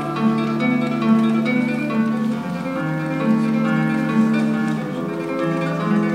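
Solo classical guitar played fingerstyle: plucked notes and chords ringing over a moving bass line.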